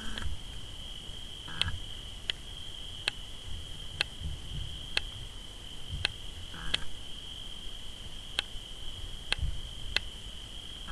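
Crickets chirring steadily in one unbroken high band, with a sharp crack about once a second and a few low thuds underneath.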